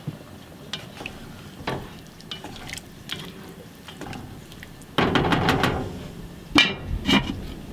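Scattered clinks and knocks of dishes and kitchen utensils being handled. About five seconds in comes a louder burst of clatter lasting about a second, then two sharp knocks near the end.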